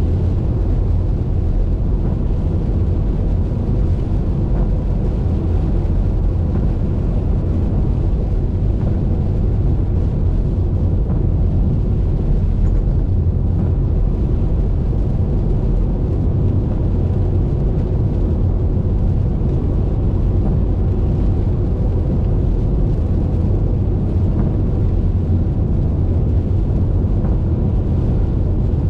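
Steady low rumble of a car driving along a highway: tyre and road noise with wind, and a faint steady hum throughout.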